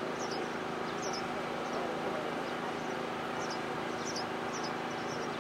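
Open-air background noise with small birds chirping: short, high chirps recurring irregularly every half second to a second.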